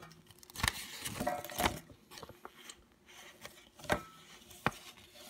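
Handling noise: a few light taps and clicks, with some rustling, as small objects are picked up and set down.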